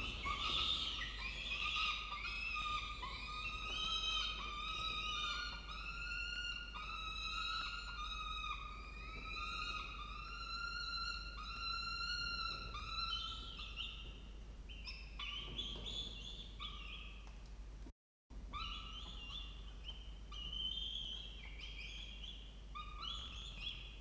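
Peregrine falcon chicks food-begging while an adult feeds them: rapid repeated harsh calls, about two a second, thinning out to scattered calls in the second half.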